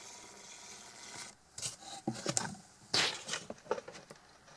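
Handling noise: rubbing and a few light knocks and clicks, the loudest knock about three seconds in.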